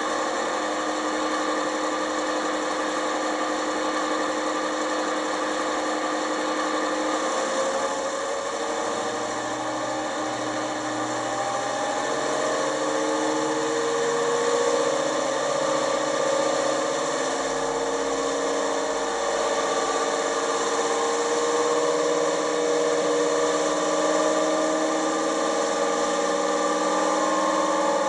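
ESU LokSound decoder in an OO gauge Class 55 Deltic model playing its recorded Napier Deltic diesel engine sound through the model's small speaker. The engine runs steadily, its pitch drifting gently up and down.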